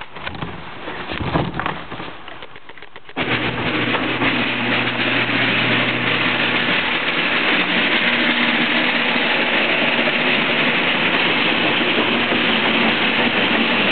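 A garage door opener starts about three seconds in and runs steadily, its motor humming under the rattle of the door travelling up. Before that there is a little quieter handling noise.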